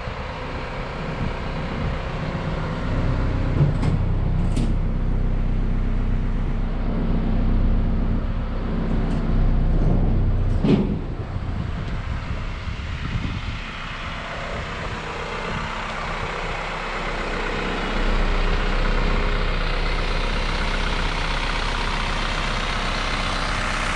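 2015 Isuzu NPR HD box truck idling: a steady low engine hum, with a few sharp clicks about four seconds in and a louder clunk about eleven seconds in.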